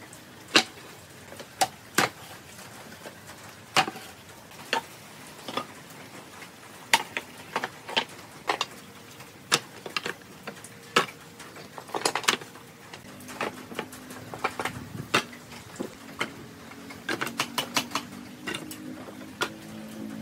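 Scrap wood offcuts clacking and knocking against one another as pieces are pulled from a pile and set down on a table, in irregular single sharp knocks. A faint low hum comes in about two-thirds of the way through.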